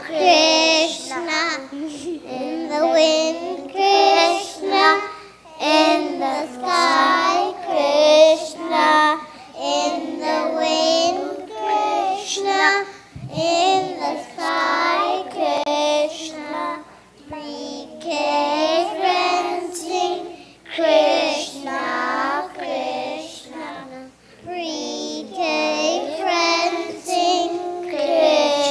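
A group of preschool children singing a song together in unison, phrase after phrase with short breaths between.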